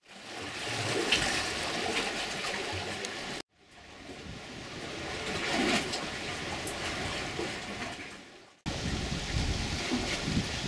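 Outdoor background noise, an even hiss with no clear source. It fades in, drops to silence about three and a half seconds in, fades back up and out again, then comes back abruptly about two seconds before the end.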